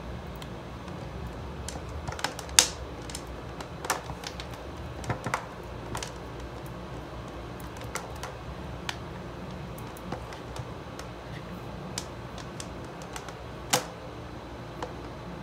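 Scattered sharp plastic clicks and taps as a USB charging hub, its cable connectors and power plug are handled and plugged together, over a steady low hum. The two loudest clicks come about two and a half seconds in and near the end.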